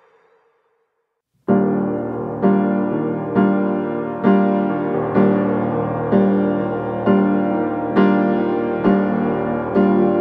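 Background piano music: after a brief silence, keyboard chords come in about a second and a half in and are struck evenly about once a second.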